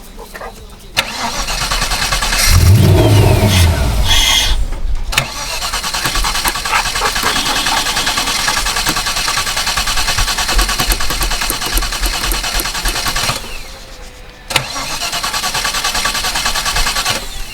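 Holden 304 V8 being cranked on the starter motor in three spells of a few seconds each, without catching. The first spell carries a louder low rumble. The engine won't start after eight years sitting, which the owner puts down to a fuel problem: a fouled pump or sticky injectors.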